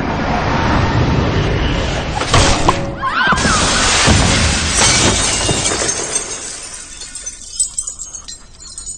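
A glass basketball backboard shattering: a loud crash of breaking glass, then a spray of falling shards that dies away into scattered tinkles over the last few seconds, with film score music underneath.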